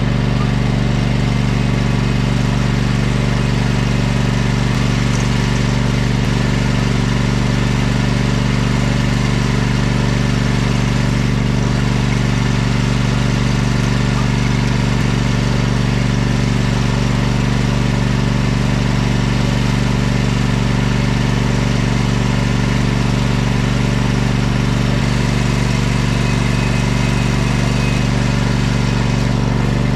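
Zero-turn riding mower's engine running at a steady, unchanging speed.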